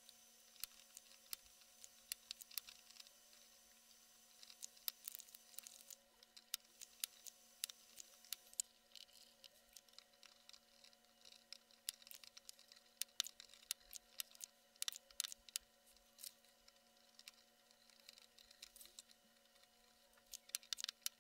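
Faint, scattered small clicks and ticks of tools working on a circuit board as a USB 3.0 socket is desoldered with a hot air gun and soldering iron, over a steady low hum. A faint hiss runs through the first half.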